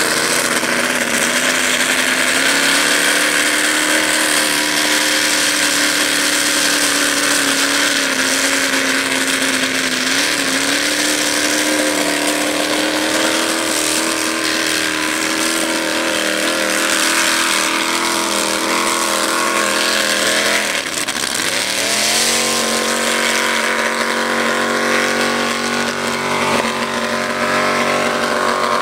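Lifted mud-bogging truck's engine held at high revs as it churns through a mud pit. About two-thirds of the way through the revs drop sharply, then climb straight back up.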